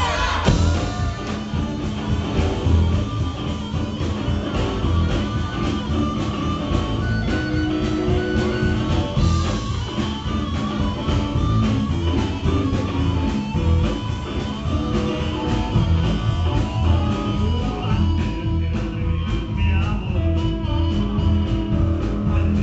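Blues-rock band playing an instrumental passage: guitar over a steady bass and drum beat.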